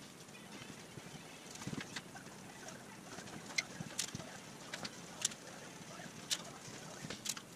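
Faint, scattered light clicks and taps, about half a dozen at uneven intervals, from hands handling cardboard panels and thin wooden strips, over a low garage room tone.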